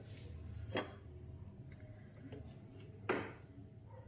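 Spatula stirring a thick gravy in a metal pan, with two short knocks of the spatula against the pan, one about a second in and a louder one near the end.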